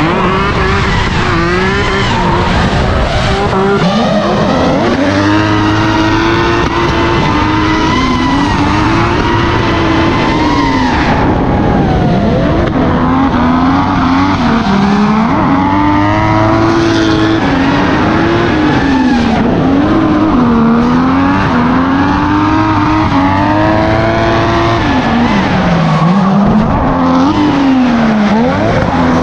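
Drift car engines revving hard, the pitch rising and falling over and over as the throttle is worked, over the hiss of tyres skidding.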